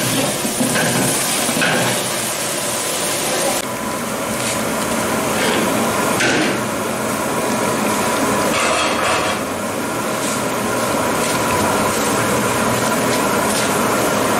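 Dal with dried red chillies boiling in a large aluminium pot on a burner, a steady hiss of bubbling. Scattered short knocks and clinks come through it.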